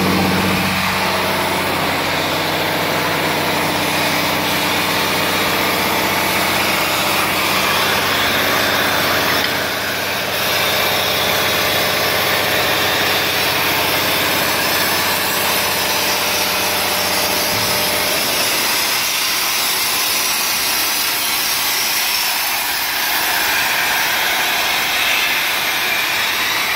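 CNC cutting machine's torch cutting steel with a loud, even hiss, over a low machine hum that stops about two-thirds of the way through while the hiss continues.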